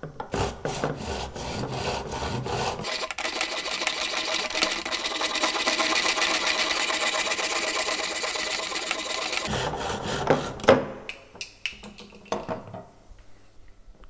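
A small hand hacksaw cutting through a carbon-fibre handlebar. It starts with slow, separate strokes, then runs at a quicker, steady back-and-forth sawing for about six seconds, and stops about ten seconds in once the bar is cut through. A few knocks follow.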